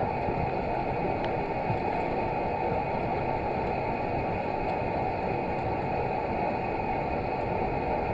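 Steady, muffled underwater rumble picked up by a camera submerged in a swimming pool, with no change in level.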